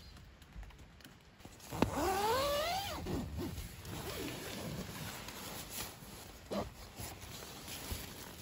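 Tent door zipper pulled open about two seconds in, a quick rising whir lasting about a second, followed by softer fabric rustling and a light click.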